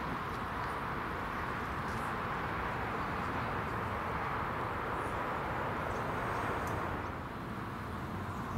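Steady outdoor background noise, a continuous even rush that eases a little about seven seconds in, with a few faint high chirps and ticks on top.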